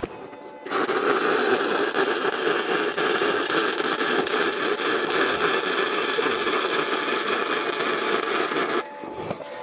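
Arc welder laying a continuous weld on steel: a steady, even hissing noise that starts just under a second in and cuts off near the end, about eight seconds long.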